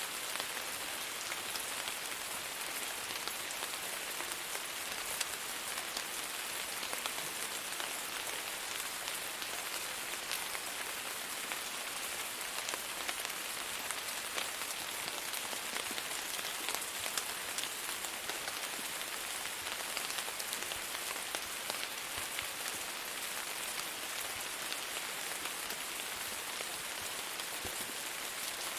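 Steady rain falling on a surface: a dense, even hiss with many small individual drop ticks scattered through it.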